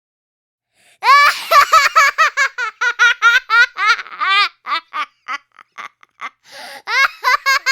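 Children laughing hard in quick, high-pitched repeated "ha" bursts, starting about a second in after a brief silence. The laughter thins to breathy gasps a few seconds later and picks up again near the end.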